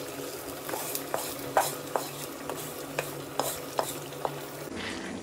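Wooden spatula scraping and knocking against a metal karahi, about ten strokes, as hot oil with fried onion and garlic is scraped into a pot of curry. A steady sizzle runs underneath as the tempering (baghar) hits the curry.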